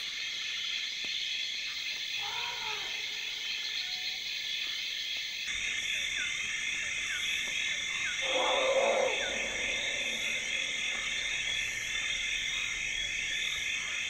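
Rainforest ambience: a dense, steady chorus of small calling animals, pulsing evenly. A higher buzzing chorus joins about five seconds in, and a louder call of about a second stands out over it about eight seconds in.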